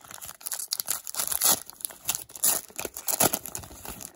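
Foil wrapper of a Panini XR football card pack being torn open and crinkled by hand: dense, irregular crackling throughout.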